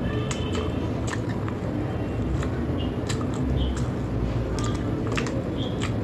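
Close-up eating sounds: wet chewing and lip smacks, with fingers squishing roti through runny yogurt kadhi, heard as many short sharp clicks and a few brief squeaks. A steady low rumble runs underneath.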